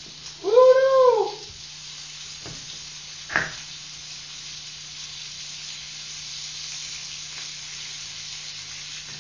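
Bacon frying in a pan, sizzling with a steady hiss. About a second in, a man's voice gives a loud, drawn-out 'woo!' that rises and falls in pitch.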